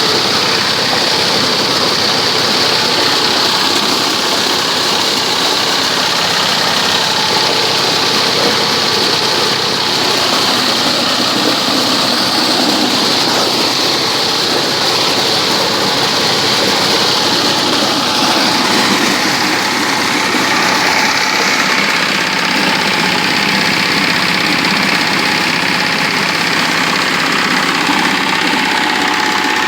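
Engine-driven corn sheller running steadily, a dense, even mechanical din of engine and threshing drum.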